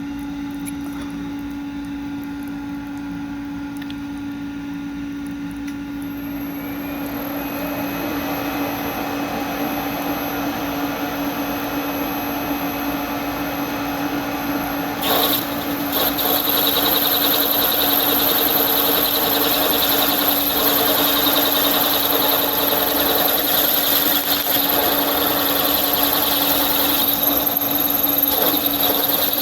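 Machine tool running steadily while its cutter takes a cut in metal. The cutting noise builds about six seconds in and gets louder again around fifteen seconds in, with a high-pitched whine over the motor's steady hum.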